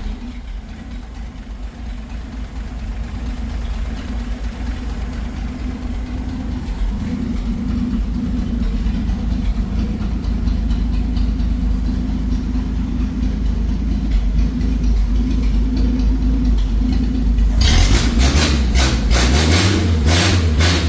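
Inline six-cylinder engine of a Willys Jeep idling with no muffler fitted, so the open exhaust is heard. Late on it is revved in several quick blips.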